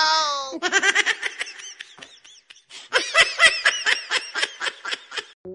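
A drawn-out yell that falls away in the first half second, then two bouts of rapid ha-ha-ha laughter.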